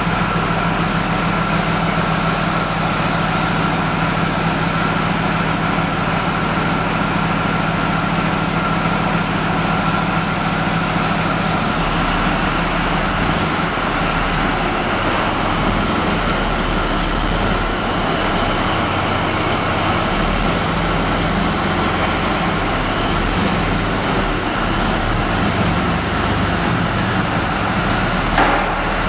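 Leopard 2A4 tank's V12 twin-turbo diesel engine running loud and steady, with a constant high whine over the engine note. About twelve seconds in the low engine note changes as the tank sets off and drives forward slowly, and there is a short knock near the end.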